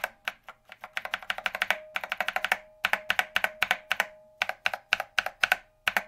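Glorious Panda tactile mechanical keyboard switches under SA ABS keycaps, typed in about five quick bursts of clacks. A metallic ping rings on after the strokes. These switches have been fitted with switch films, which the typist thinks made them sound worse.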